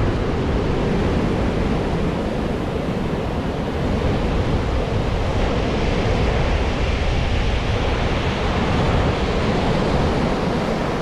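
Steady rush of surf breaking and washing up the beach, with wind buffeting the microphone.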